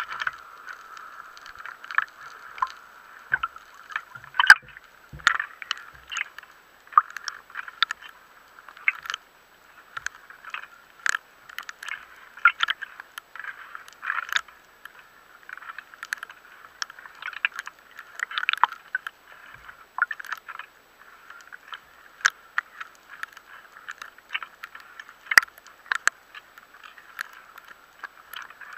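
Muffled underwater water noise with irregular sharp clicks and knocks, heard through a waterproof camera housing just below the surface, with some sloshing and gurgling.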